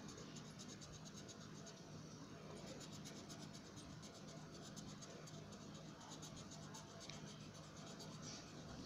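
Green colored pencil scratching on paper in rapid back-and-forth strokes, shading in a drawing. It is faint, over a steady low hum.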